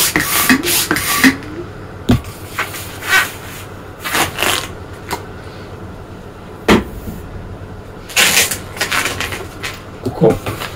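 Latex modelling balloons squeaking as they are twisted and rubbed in the hands, then scattered rustles and knocks while the balloons are handled, with one sharper thump about seven seconds in.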